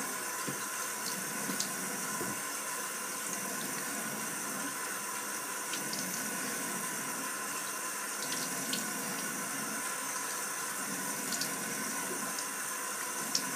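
Bathroom sink tap running steadily while cold water is splashed onto a face, with a few small splashes and drips over the flow.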